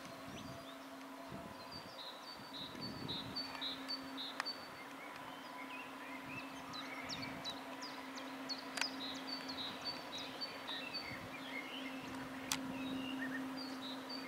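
Songbirds chirping in short repeated phrases over a steady low hum from a class 423 electric S-Bahn train standing at the platform. Three sharp clicks stand out, at the very start, about nine seconds in and near the end.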